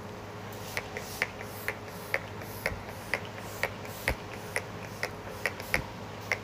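NYX Bare With Me setting spray's pump-mist bottle spritzed at the face again and again: about a dozen short, sharp sprays, roughly two a second.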